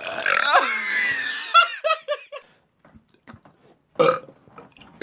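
A long, loud human belch lasting about a second and a half, its pitch wavering and sliding, followed by a short burst of laughter.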